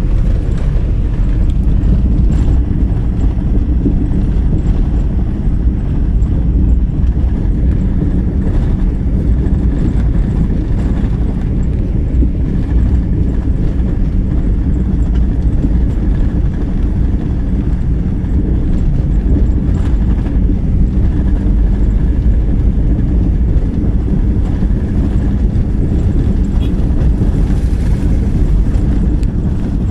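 Car engine and road noise heard from inside the cabin while driving, a steady low rumble with faint occasional knocks and rattles.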